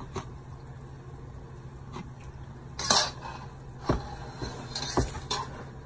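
A metal fork knocking and clinking against a stainless steel pan while tossing seasoned raw chicken pieces, in several separate knocks, the loudest about three seconds in.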